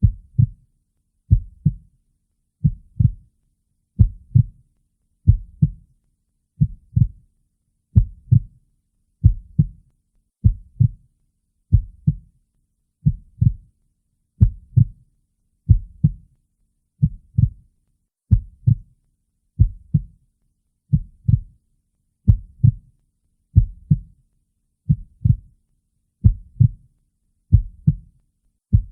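Heartbeat, a slow, steady lub-dub: each beat is a pair of low thumps close together, repeating evenly at about 45 beats a minute.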